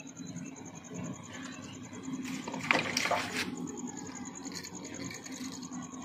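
A short splash about halfway through as a baited hook on a handline drops into the pond water, over a faint high steady whine.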